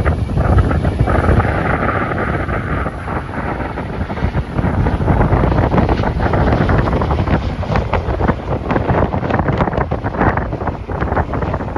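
Strong wind buffeting the microphone: a loud, gusting low rumble, with a faint steady whine in the first three seconds or so.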